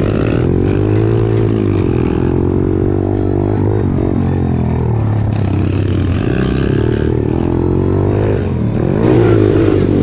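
Small pit bike engines revving up and down, rising and falling in pitch again and again as the throttle opens and closes.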